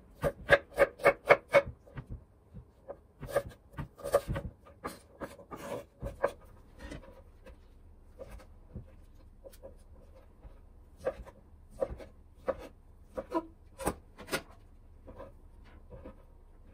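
Kitchen knife chopping on a wooden cutting board: a quick run of about six chops near the start as onion is diced, then irregular, scattered cuts and taps as bacon is sliced.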